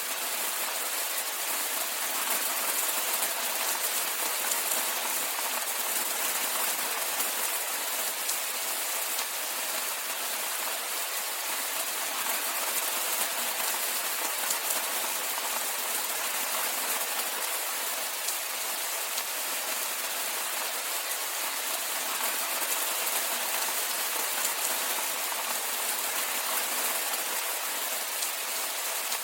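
Steady rainfall: an even hiss of many small drops pattering, with no low rumble and no change in level.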